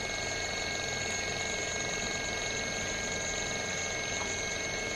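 Steady hum with a high, even whine from the running DC motor and electronics of a servo-motor trainer.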